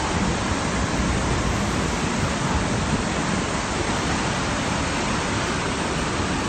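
Rushing floodwater: a steady, loud roar of water with no break.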